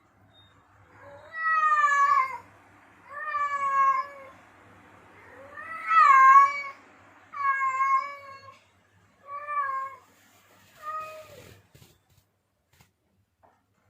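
Male cat in heat giving mating calls: six drawn-out meows in a row, each falling in pitch, the later ones shorter.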